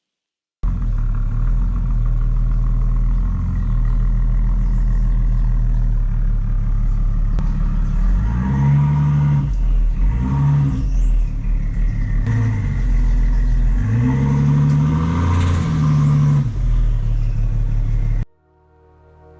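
BMW X5 40d's twin-turbo three-litre straight-six diesel (N57) idling, then revved in several blips about halfway through and once more, higher, later on, with a turbo whistle rising and falling with the revs. The engine sound cuts off suddenly near the end, leaving faint music.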